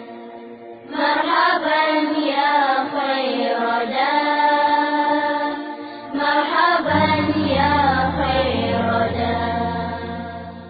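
Voices singing an Arabic devotional song (nasheed) in a chanting style, with long held, wavering notes. A lower, steady accompaniment joins about seven seconds in, and the singing fades near the end.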